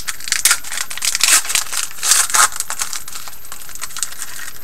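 A trading-card pack wrapper crinkling and tearing as it is opened by hand, in a run of crackly rustles that thin out after about two and a half seconds.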